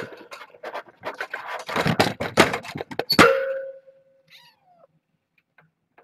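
Clattering, scraping and knocking against the camera and its cables, ending a little over three seconds in with a sharp knock that rings briefly. About a second later a kitten gives one short meow that falls in pitch.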